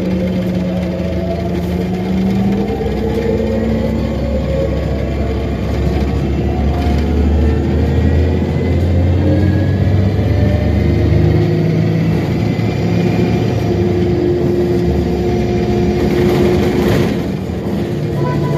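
Orion VII diesel-electric hybrid transit bus under way, heard on board: the engine runs under a traction-motor whine that rises in pitch as the bus picks up speed. A short knock or rattle about 17 seconds in.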